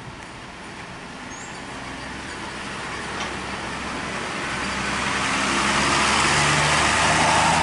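Intercity coach driving slowly past at close range: its diesel engine runs under a rushing noise that grows steadily louder as the bus nears, loudest near the end.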